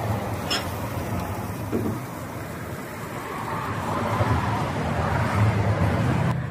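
Steady road traffic noise, with vehicle engines running and a low hum that rises and falls. There is a brief click about half a second in.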